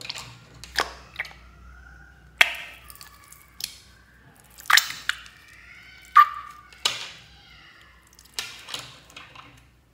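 Slime squelching and popping as a mesh stress ball full of slime is squeezed, the slime oozing through the net and dropping onto a tray of slime. Irregular sharp pops and crackles come about once a second, with faint squeaky sounds between them.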